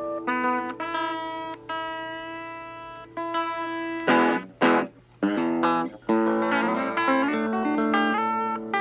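Telecaster electric guitar played through a small Pignose practice amp: single picked notes left to ring over each other, two quick strummed chords about four seconds in, then more picked notes and chords. The guitar is being test-played after its control panel was replaced.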